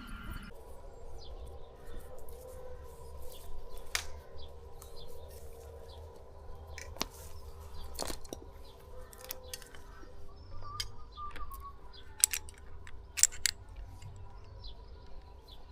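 Scattered sharp clicks and knocks of a tree climber handling rope and rigging hardware while setting a rigging line on a branch, the loudest two near the end. A bird chirps faintly a little past the middle.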